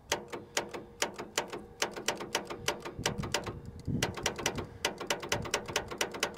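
Rapid, somewhat irregular clicking, about five or six clicks a second, from the starter circuit of a Case 1896 diesel tractor fed from a jump box. The starter does not crank, a sign that the starter is bad or seized.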